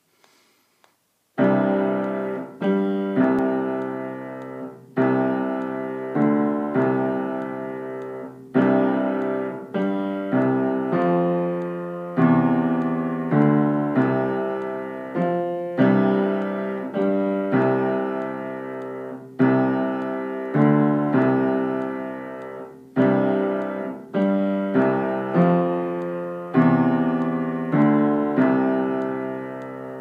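Piano playing the secondo (lower) part of a four-hand duet on its own: slow chords in the lower-middle range, struck about once a second and left to ring, starting about a second and a half in.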